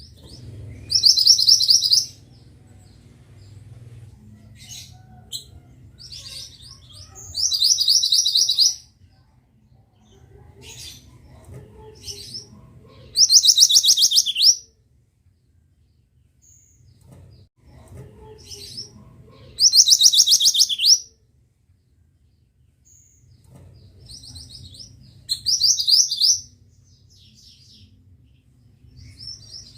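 A mantenan songbird singing: loud, rapid high trills about a second and a half long, repeated five times at intervals of about six seconds, some phrases falling slightly in pitch at the end, with faint short chips in between. A low steady hum runs underneath.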